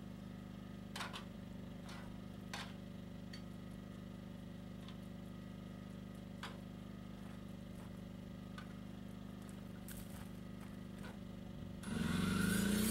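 A steady low motor hum with a few light taps over it. Near the end a power tool starts, spinning up and running much louder.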